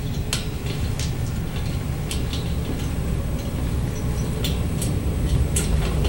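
Wheels of a camera dolly rolling along a track: a steady low rumble with scattered sharp clicks, about one or two a second.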